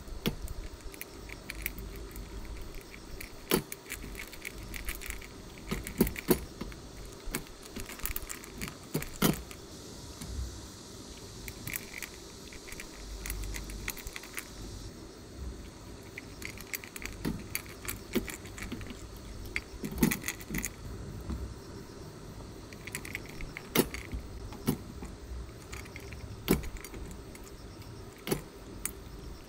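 A dog eating from a stainless steel bowl: irregular metallic clinks and knocks as its muzzle and teeth hit the bowl, a few louder than the rest.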